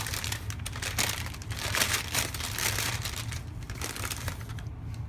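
Wrapping being crinkled and rustled by hand as an item is unwrapped, a dense irregular crackle that is busiest in the middle and dies down near the end.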